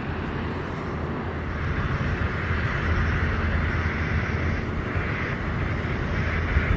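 Steady low rumble with a hiss: continuous outdoor background noise with no distinct event.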